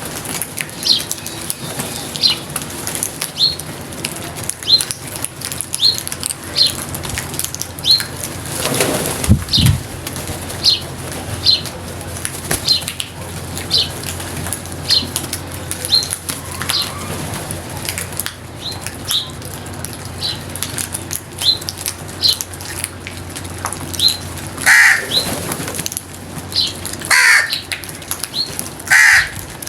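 Crows cawing, three loud harsh calls near the end, over a steady run of short high peeps repeated about once a second. A brief loud noise about nine seconds in.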